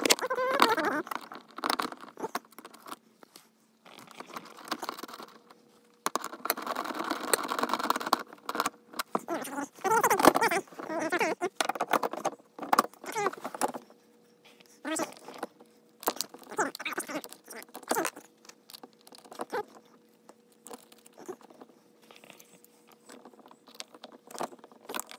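Loose metal hardware, bolts, washers and nuts, clinking and jingling in the hands, with irregular clicks, knocks and rustling as cart parts and a wheel are handled and fitted onto an axle.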